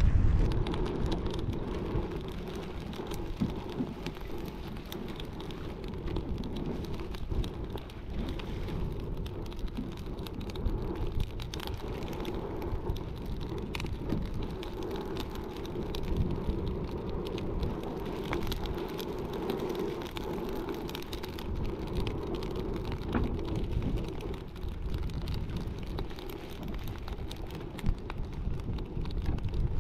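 A small fire of coconut husk crackling, with many small irregular pops, over a steady low rumble.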